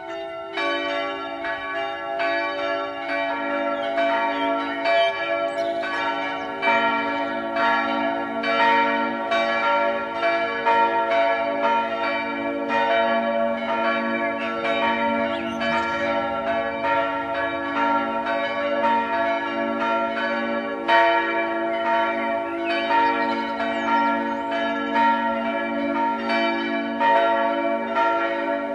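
Several church tower bells ringing together in a full peal, their strikes overlapping in a continuous clangour. Deeper bells join in during the first few seconds, filling out the low end.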